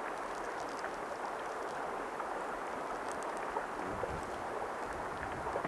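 Steady outdoor rushing noise, with low buffets of wind on the microphone about four seconds in and again near the end.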